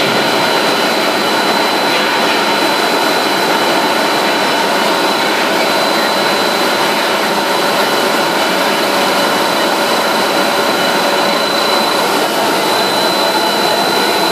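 Industrial production-line machinery running steadily: a loud, constant noise with several thin whining tones held on top, the highest a high-pitched whine.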